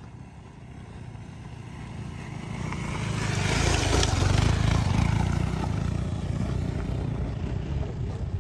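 A motorcycle engine comes closer, passes close by about four seconds in with its tyres crunching on loose dirt and gravel, then pulls away up a steep dirt slope and fades.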